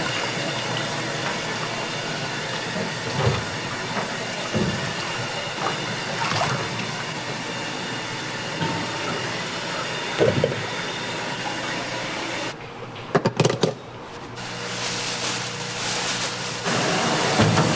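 Steady hissing kitchen noise with occasional light knocks. About two-thirds of the way through it drops away briefly, with a few sharp clicks, then a steady hiss with a low hum comes back and grows louder near the end.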